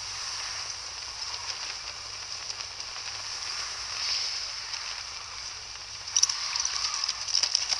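Steady hissing ambience with a faint crackle, joined by a run of sharper clicks and crackles about six seconds in.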